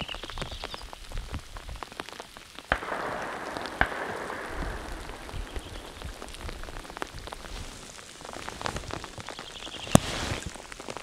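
Rain falling steadily, with sharp taps of drops hitting close to the microphone; the loudest is a single crack near the end. A faint, high, rapidly pulsed bird call comes in just before it.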